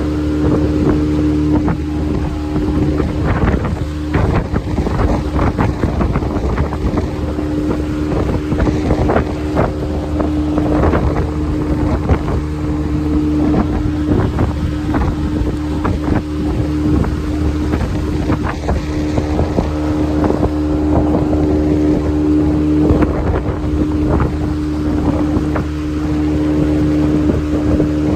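Outboard motor of a small open boat running steadily at cruising speed, a constant hum. Wind buffets the microphone in gusts.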